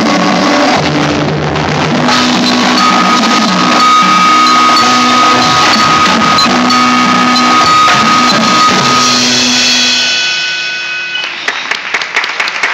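Indoor percussion ensemble playing the closing bars of its show: marching snare and bass drums with vibraphone and a keyboard synthesizer through an amplifier speaker, with long held chords. The final chord fades about ten seconds in, and scattered applause starts near the end.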